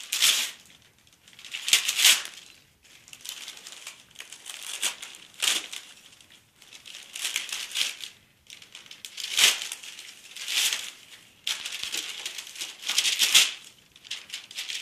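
Wrapping paper being torn and crumpled by hand as a present is unwrapped: a dozen or so irregular rustling rips.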